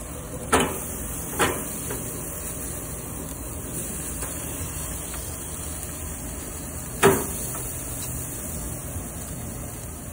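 Barbecue grill with a smoker going: a steady hiss, with a couple of light knocks as the ribs and metal are handled on the grate and a louder clank about seven seconds in.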